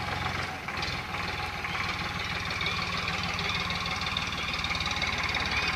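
An engine running steadily at idle, with a fast, even low pulse.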